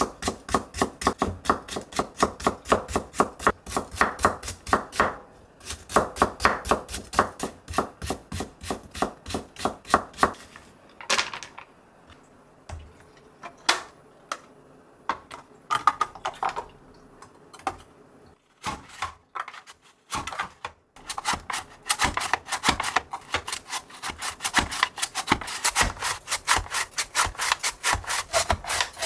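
Chef's knife julienning a carrot on a wooden cutting board, quick steady strokes of the blade on the board. After a pause of ten seconds or so with a few scattered clicks, a julienne slicer shreds carrot with fast, even scraping strokes.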